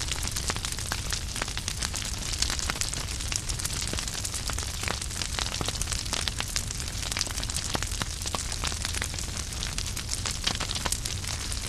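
Wood fire burning in a fireplace: firewood crackling with many irregular sharp pops and snaps over a steady low rumble and hiss of the flames.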